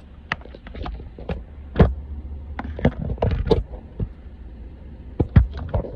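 A string of sharp clicks and knocks from things being handled inside a car, over a steady low rumble from the car.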